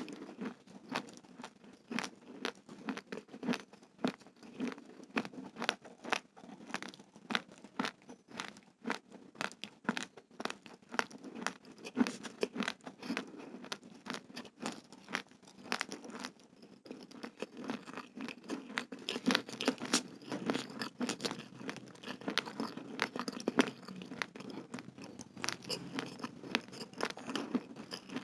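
Raw, uncooked rice grains being chewed close to the microphone: a steady run of sharp crunches, a few a second.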